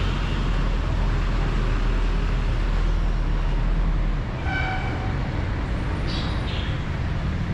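Street traffic rumbling steadily, then dropping away about four seconds in. Just after the drop comes a brief, high-pitched, steady tone.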